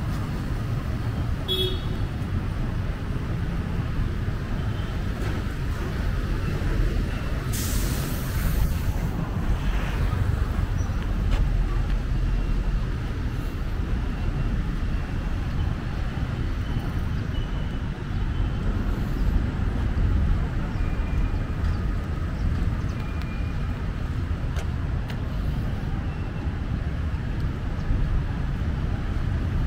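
Busy street traffic: a steady low rumble of vehicle engines passing. A sharp hiss of air, like a truck or bus air brake, lasts about a second and a half around a quarter of the way through.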